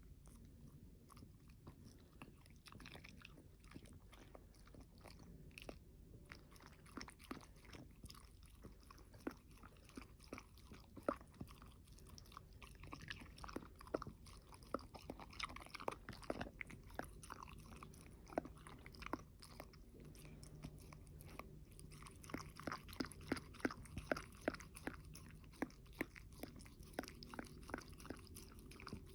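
Close-up crunchy chewing of food: many quick, crisp crunches, busiest in the middle and again near the end.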